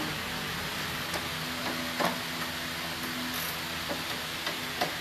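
Steady mechanical hum of workshop equipment with a few short, sharp metallic clicks of hand tools being worked on a car's front suspension.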